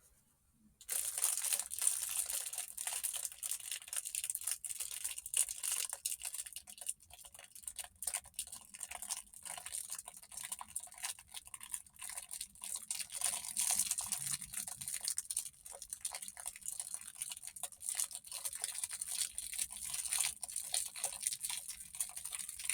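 Fire burning with dense, irregular crackling and a steady hiss, starting abruptly about a second in and going on evenly.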